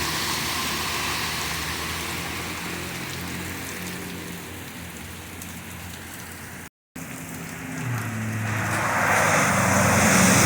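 Heavy rain pouring, with vehicles driving through standing water. The hiss fades over the first several seconds and cuts out briefly about two-thirds of the way in. Then a vehicle's engine and spray grow louder toward the end.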